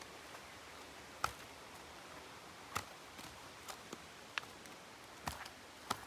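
About seven sharp taps or clicks at irregular intervals, over a faint steady hiss.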